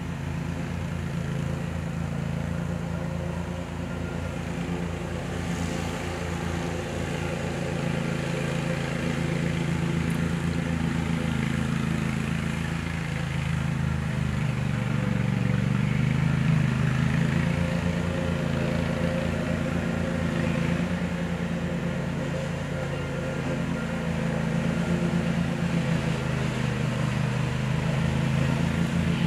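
Steady low engine hum, like a motor vehicle running nearby, holding on without a break.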